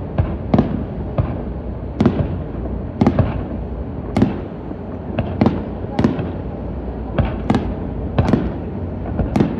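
Aerial firework shells bursting in quick succession: a dozen or so sharp bangs at uneven intervals of about half a second to a second, each trailing off in a short echo.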